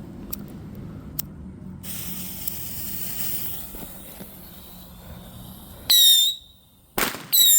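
A lit fuse hisses for a few seconds, then small whistling fireworks go off: a loud shrill whistle about six seconds in, a sharp crack a second later, and another shrill whistle near the end. They fire one after another rather than together.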